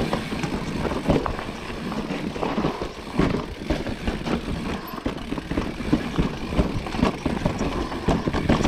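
Mountain bike riding down rocky singletrack: tyres rumbling over rocks and roots, with frequent knocks and rattles from the bike as it bumps over them.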